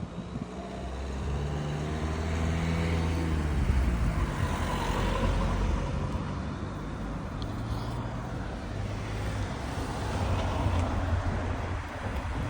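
Motor vehicle engine passing close, its pitch falling over a couple of seconds, followed by a steady low engine hum amid general traffic noise.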